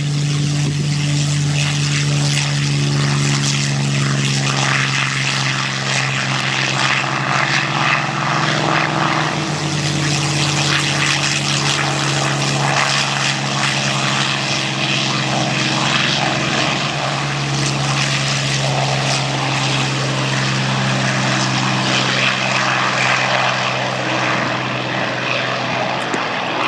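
Propeller aircraft engines giving a loud, steady drone whose pitch shifts a little now and then.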